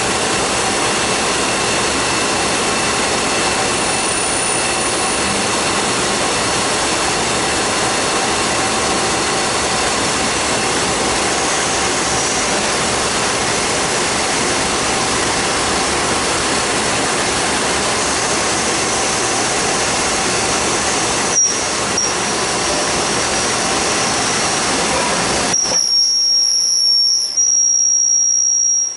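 CNC Swiss-type lathe running, a steady loud hiss with faint steady tones. About three-quarters of the way through the low noise drops away, leaving a steady high whine.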